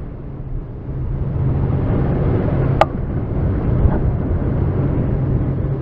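Motor boat's engine running steadily under way, a continuous low drone mixed with rushing water and wind noise. A single sharp click about three seconds in.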